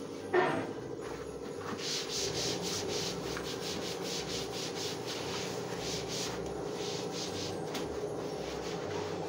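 A sponge scrubbing the inside of a kitchen wall cabinet with quick back-and-forth rubbing strokes. A brief, louder, sharp sound with falling pitch comes about half a second in.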